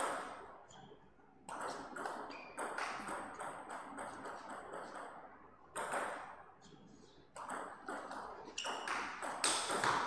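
Table tennis rallies: the celluloid-type ball clicking off rubber bats and bouncing on the table in quick alternating hits, each hit ringing briefly in the hall. One rally runs from about a second and a half in to about five seconds, and another starts near the end.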